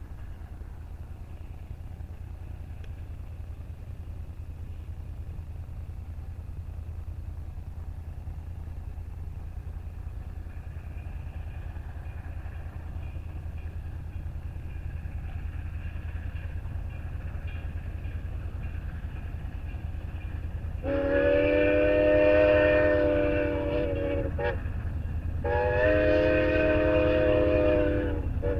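Grand Canyon Railway 4960's steam locomotive whistle blowing two long chime blasts of about three seconds each, then starting a third just at the end, over a steady low rumble.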